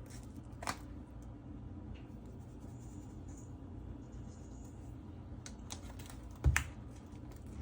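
Light taps and clicks from a spice container as onion powder is shaken and tapped out over meat, with one louder knock about six and a half seconds in, over a steady low hum.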